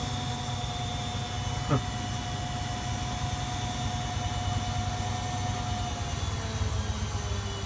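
Servis Quartz MK601 washing machine running with a steady motor whine over a low hum; near the end the whine fades and a lower tone starts to fall in pitch. About two seconds in there is one brief sound that falls quickly in pitch.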